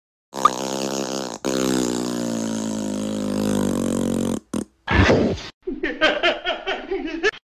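Cartoon sound effect: a long, low buzz lasting about four seconds as the button on a small handheld gadget is pressed. Then comes a short noisy burst and a brief stretch of wordless vocal sounds from a character.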